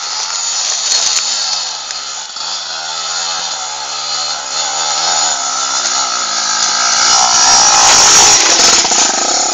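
Trail motorcycle engine climbing a dirt track, its pitch rising and falling with the throttle. It grows louder as the bike approaches and is loudest as it passes close about eight seconds in.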